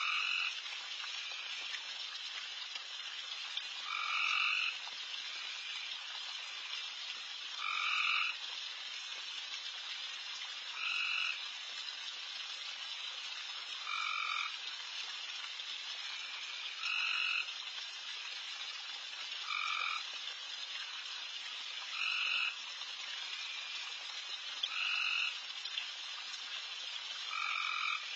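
A loud chorus of many frogs calling around a pond, a dense steady high-pitched din, with one louder frog call repeating about every three seconds.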